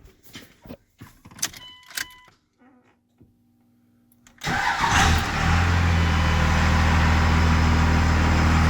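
A few clicks and knocks and a brief electronic tone. About four and a half seconds in, the 24-valve Cummins 5.9 L inline-six turbo diesel starts and settles into a steady idle. The starter's remote wire has been reconnected and the no-crank fault is cured.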